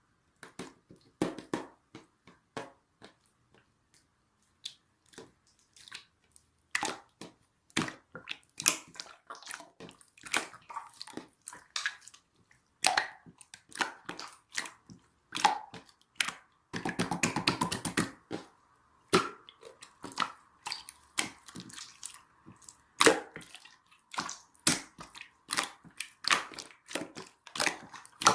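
Irregular sharp clicks and taps of small objects being handled, with a rapid rattling run of clicks a little past halfway.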